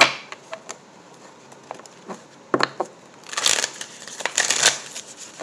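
Tarot deck being shuffled by hand: a sharp tap at the start and scattered card clicks, then about three seconds in a riffle shuffle on the tabletop, the cards flicking together in a quick run lasting about a second and a half.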